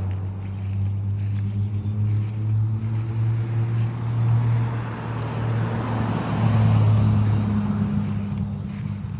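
Steady low mechanical hum of a running motor, swelling a little about four and seven seconds in.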